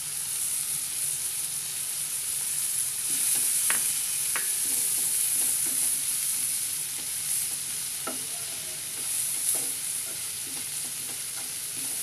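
Shredded cabbage, carrot, capsicum and onion sizzling in hot oil in a non-stick frying pan while a wooden spatula stirs and scrapes them, with a few sharp taps of the spatula on the pan.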